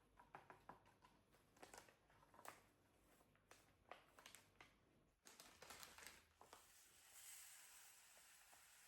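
Faint handling noises indoors: scattered light clicks and knocks, then a soft steady hiss from about seven seconds in.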